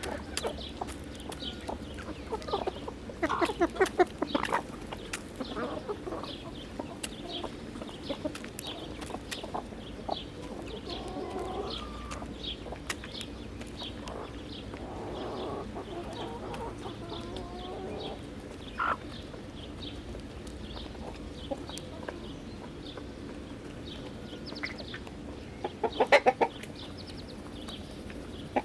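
Chickens clucking and calling while they feed, with two louder bursts of rapid clucking, one a few seconds in and one near the end.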